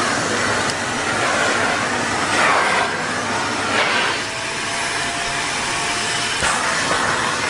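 Vacuum cleaner running: a steady rushing noise that swells a few times, with a thin steady whine joining about four seconds in.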